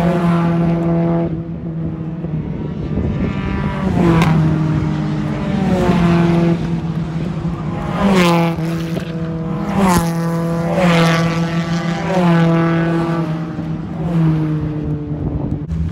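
Nissan Pulsar race cars passing one after another at speed, about eight in all, roughly one every one to two seconds. Each engine note drops in pitch as the car goes by.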